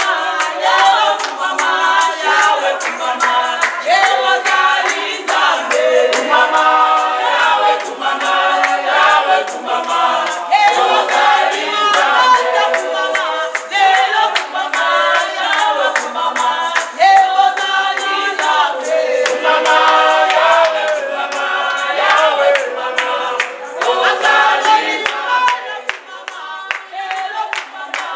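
A group of women singing together in a church hall, with steady hand clapping in time. Near the end the singing thins out while the clapping goes on.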